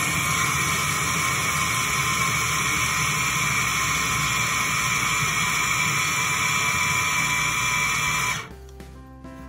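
Small electric food processor's motor running at full speed with a steady high whine as it grinds roasted peanuts in its glass bowl, held down by hand. It stops abruptly about eight and a half seconds in.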